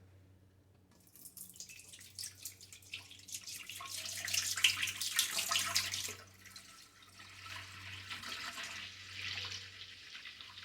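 Raw milk being poured, splashing and glugging into a pot. The flow is loudest about four to six seconds in, eases off, then swells again briefly near the end.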